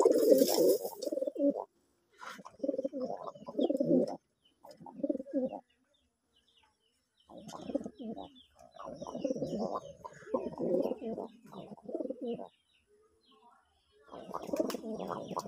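Domestic pigeons cooing in repeated bouts of a second or two, with short silent gaps between them. Faint high chirps of small birds come through the middle.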